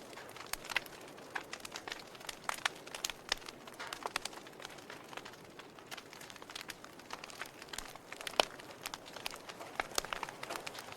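Wood logs burning in a fireplace, crackling with irregular sharp pops over a soft hiss, one louder pop about eight seconds in.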